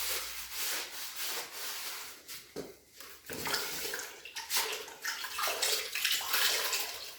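Freshly grouted floor tiles being washed by hand with a wet rag: wet scrubbing and water sloshing in irregular strokes, clearing the grout residue off the tile faces.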